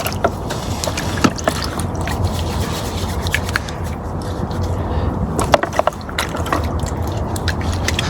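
Van's engine running, a steady low rumble, with scattered light clicks and knocks throughout.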